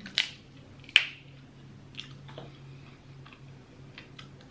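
Close-miked eating of a seafood boil: chewing, with two sharp cracks about a quarter second and a second in, then a few smaller clicks, over a low steady hum.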